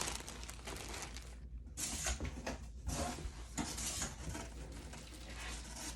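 Plastic packaging around skeins of yarn crinkling as it is handled, in irregular spells with a few brief pauses.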